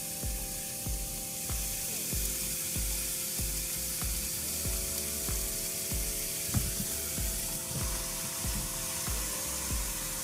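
Ribeye steaks sizzling on a George Foreman electric contact grill, a steady hiss, under background music with held chords and a steady beat.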